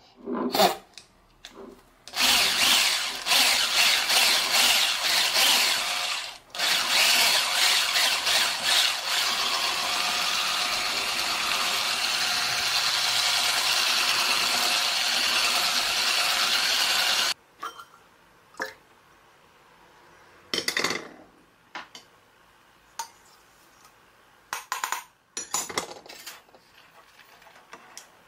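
Electric hand mixer with wire whisk beaters running in a bowl of thick chocolate mixture, cutting out briefly about six seconds in and stopping after about seventeen seconds. Scattered short knocks and clinks follow.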